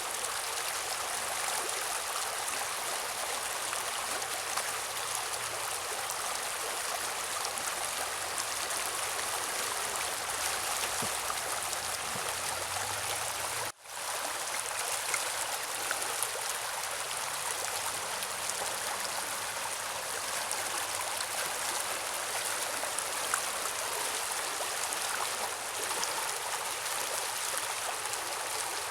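Mountain river running steadily, an even rushing of water over its bed. The sound drops out for an instant about halfway, then resumes unchanged.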